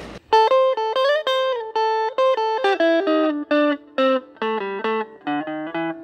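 Outro music: a single melody line of notes stepping downward, with a couple of upward slides about a second in.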